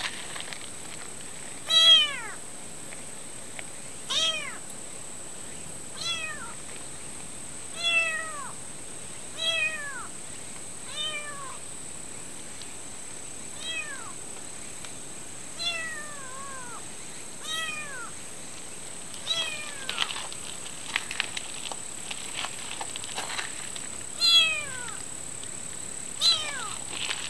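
A young stray kitten meowing over and over, a short high call about every two seconds, each falling in pitch: a kitten's distress calls for its mother cat.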